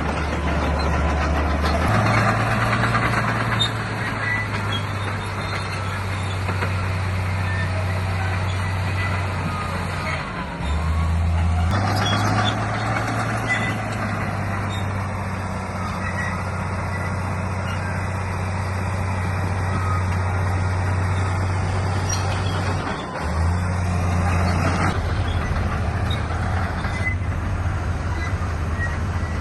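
Heavy diesel earth-moving machinery running under load: a steady low engine drone whose pitch shifts up and down several times as the throttle changes.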